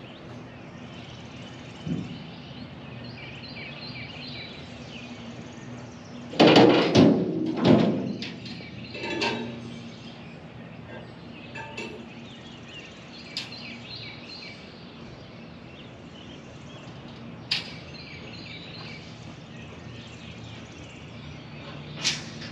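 Small birds chirping over a steady low hum, with a burst of loud knocks and clatter about six to eight seconds in and a few single sharp clicks later.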